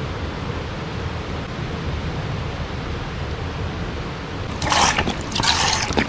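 Steady rushing of a river running over rocks. Near the end comes a louder splashing: water poured from a plastic bottle into a metal cooking pot.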